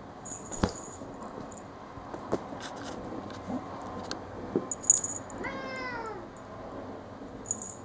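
A Siamese cat's single meow, about a second long and falling in pitch, about two-thirds of the way in, among a few light taps and high jingles during play.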